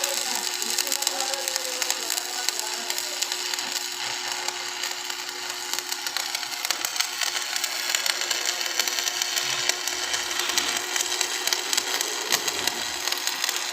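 Electric arc welding: the arc gives a steady crackling hiss, with a low steady hum underneath.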